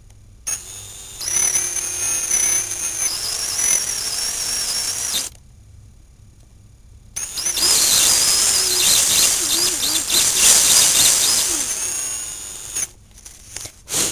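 Cordless drill with a 1/8-inch bit boring a kingpin hole part way into a thin wooden fingerboard deck, run in two stretches of about five seconds each with a short pause between; a high motor whine wavers as the trigger and the bit's load change. A brief knock near the end.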